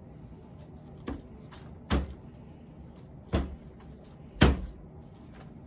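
Plastic cups and a concrete-filled plastic mold knocking on a worktable: four sharp knocks with lighter clicks between, the loudest about four and a half seconds in.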